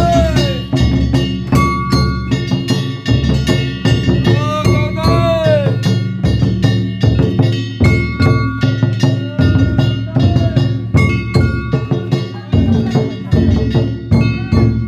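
Danjiri festival music: a taiko drum beaten in a fast, steady rhythm under metal hand gongs ringing, with a short tone that rises and falls about every five seconds.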